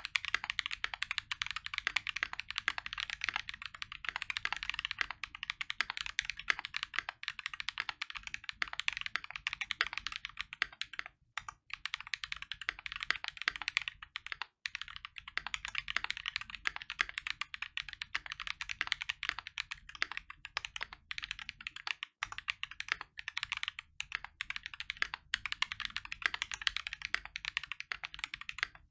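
Fast, continuous typing on a custom mechanical keyboard with a brass plate and case and plate foam, fitted with stock, unlubed Strawberry Milk tactile switches (full nylon housing, 67 g, medium-heavy bump) and GMK keycaps. It is a dense stream of keystroke clacks with a few brief pauses, at about 11, 15 and 22 seconds in.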